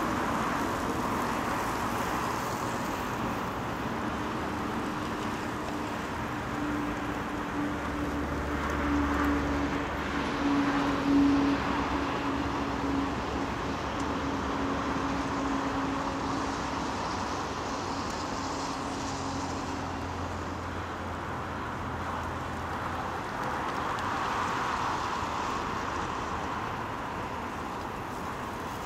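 Steady road traffic noise. A vehicle engine hums through the middle stretch, with a deep rumble swelling twice and the loudest moment a little past a third of the way in.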